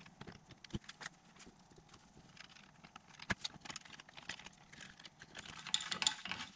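Scattered light clicks and knocks of hard plastic parts being handled, as a 3D-printed turn-signal stalk and blinker are worked through a hole in a Honda Ruckus taillight housing. The handling gets busier and louder near the end.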